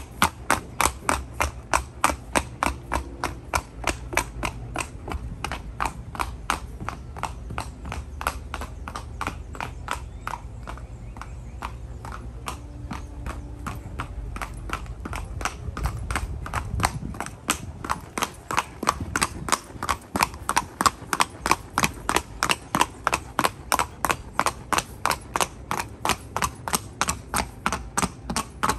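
Hoofbeats of a ridden Colombian criollo horse on concrete: a quick, even clip-clop of about three to four beats a second, fading somewhat through the middle and growing louder again in the second half.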